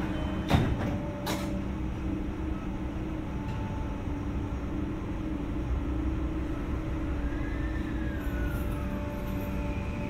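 Interior of a Tokyu 3020 series electric train car setting off: a sharp knock about half a second in and a lighter one a moment later, then the car's steady hum with its air conditioning running and a faint motor tone that rises and falls in pitch near the end.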